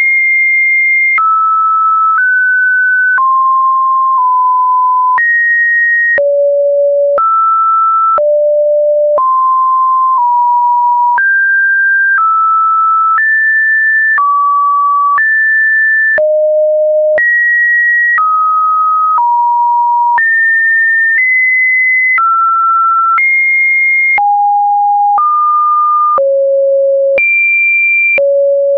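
Computer-generated pure sine-wave test tones, one after another at about one per second, each at a different random pitch from mid to fairly high, switching abruptly with a faint click at each change.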